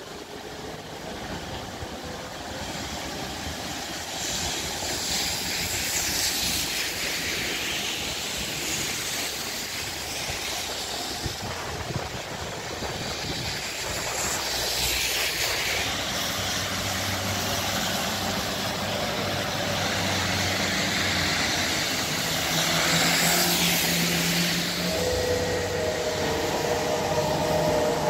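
Wet-street traffic: cars pass about three times, each a rising and fading hiss of tyres on rain-soaked asphalt. Near the end a low hum and a steady whine build as a tram approaches.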